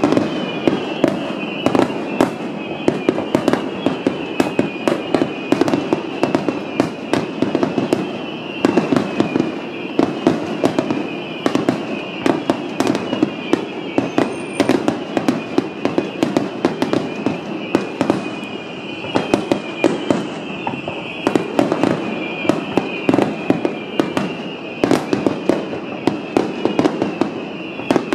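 Aerial firework shells bursting in a dense, continuous finale barrage: rapid overlapping cracks and bangs over a steady rumble.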